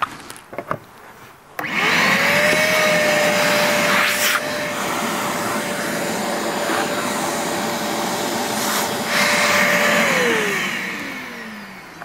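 Canister vacuum cleaner used as a bee vacuum, switched on about one and a half seconds in: the motor whines up to speed and runs steadily with a rush of suction through the hose. Near the end it is switched off and winds down, its whine falling in pitch.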